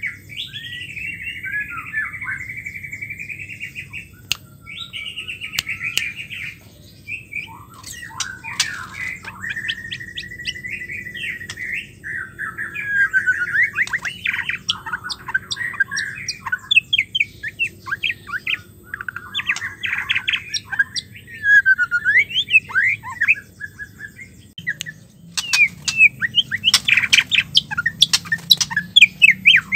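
Female white-rumped shama singing: a varied stream of whistled glides and chattering phrases with short pauses, ending in a loud, quick run of sharp notes near the end.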